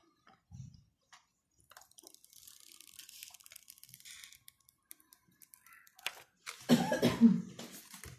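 Protective plastic film being peeled off a smartphone, a fine crackling hiss, followed about six and a half seconds in by a louder, short burst of noise.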